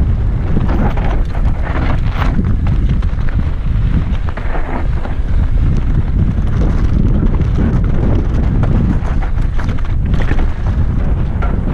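Wind buffeting the microphone of a camera riding on a downhill mountain bike, a steady loud rumble, with the rattle and clatter of the bike running fast over a rocky dirt trail.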